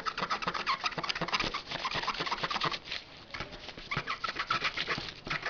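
Rubber eraser rubbed rapidly back and forth over the gold edge contacts of a DDR2 RAM module wetted with cleaning solution, a quick run of scrubbing strokes with short squeaks.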